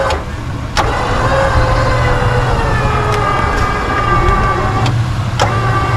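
A vehicle's engine or winch motor running under steady load in the snow, with a whine that holds and drifts slowly in pitch over a low hum. Two sharp knocks, about a second in and near the end.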